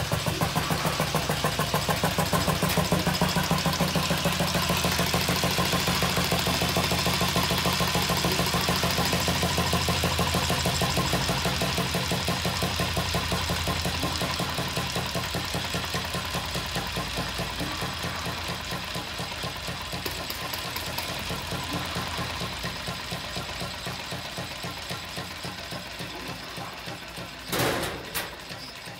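Lister stationary diesel engine running with an even beat of firing strokes, then slowly fading and slowing as it is shut down and runs down on its heavy flywheels. A short loud noise comes near the end.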